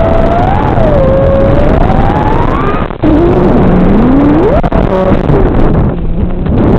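FPV quadcopter's four Xing 2206 2750 kV brushless motors and props whining, the pitch sliding up and down with the throttle. About three seconds in the sound drops out briefly, then comes back as a low note that climbs steeply.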